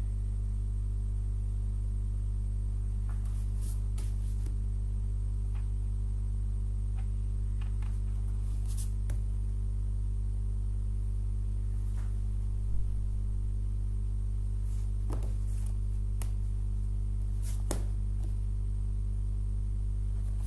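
Steady low electrical mains hum on the recording, with faint rustles and light taps of paper comic books being leafed through and set down, the clearest tap about two-thirds of the way through.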